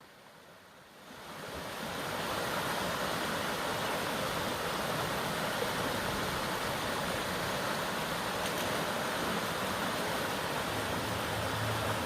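Waterfall rushing: a steady roar of falling water that fades in over the first couple of seconds and then holds even.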